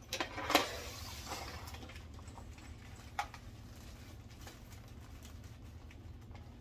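Light clicks and a short paper rustle as small hardware and a paper bag are handled, the sharpest click about half a second in and one more about three seconds in; after that only a low steady room hum.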